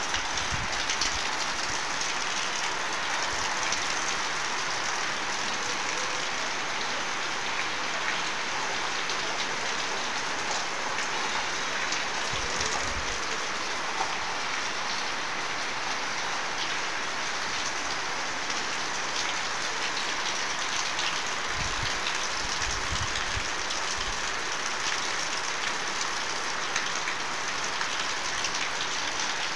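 Steady rain pouring down on wet ground and roofs, an even continuous hiss. A few brief low rumbles come through, about twelve seconds in and again about two-thirds of the way through.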